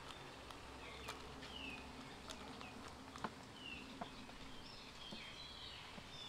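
Faint outdoor background with birds chirping: two short, high chirps that fall in pitch, then more chirping near the end, along with a few light clicks.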